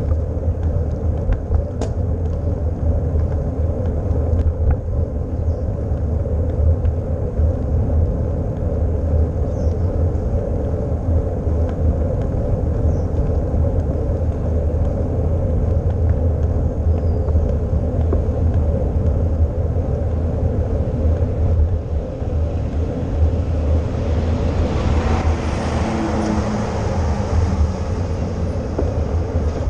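Steady wind rumble on a GoPro microphone while riding a bicycle on a road, with tyre and road noise. About 24 seconds in, the noise of a nearby motor vehicle swells up over it.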